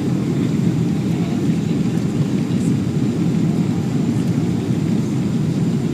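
Steady cabin noise inside a Boeing 777-200 in flight on approach: an even low rumble of engines and rushing air heard through the fuselage.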